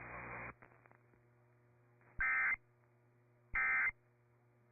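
Emergency Alert System end-of-message data bursts: the screeching digital SAME tones, sent twice here, each burst under half a second long and about a second apart. They follow the noisy tail of the broadcast audio, which cuts off about half a second in.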